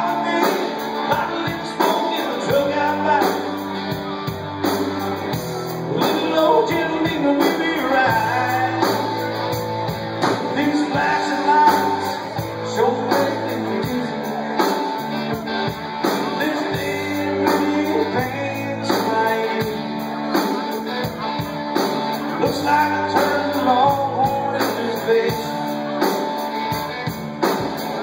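Live rock band playing a song on electric guitars and drum kit, with a male voice singing.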